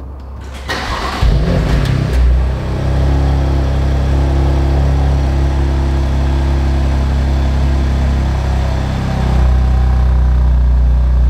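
BMW M2 Competition's 3.0-litre twin-turbo S55 inline-six cold-starting on its factory exhaust. The starter cranks and the engine catches with a brief rev flare in the first two seconds. It then settles into a steady, fast cold idle.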